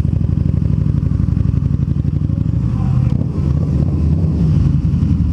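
Harley-Davidson V-Rod Muscle's 1250 cc liquid-cooled V-twin running at low speed as the bike is ridden slowly, a steady rapid exhaust pulse.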